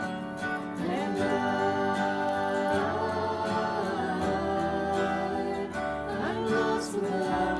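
Strummed acoustic guitar accompanying slow sung worship music, with a voice holding and sliding between long notes from about a second in.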